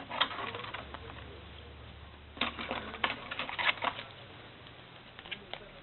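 Baseball trading cards being handled and shuffled: a few quick clicks just after the start, then a rapid run of clicks and rustles about two and a half seconds in.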